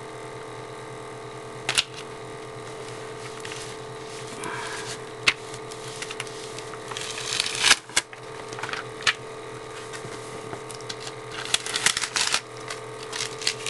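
Adhesive vinyl decal sheet and transfer tape being handled and peeled: scattered clicks and crinkly rustles, loudest about halfway through and again near the end, over a steady background hum.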